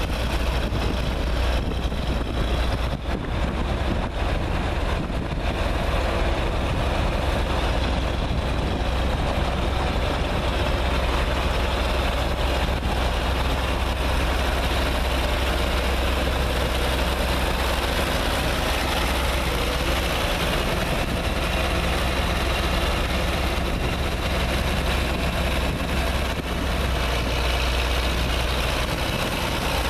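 John Deere 4050 tractor's six-cylinder turbocharged diesel running steadily at low engine speed as the tractor drives slowly.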